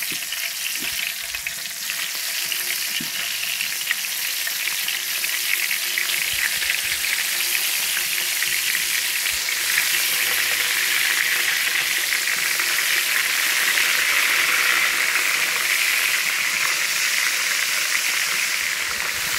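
Small lambari fish frying in hot oil: a steady, dense sizzle with fine crackling, growing a little louder about halfway through, as the fish start to brown.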